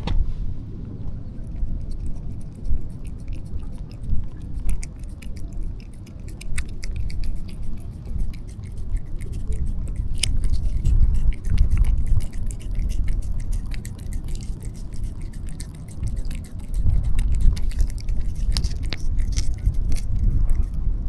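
A street cat eating wet food, with many quick small licking and chewing clicks over a low rumble.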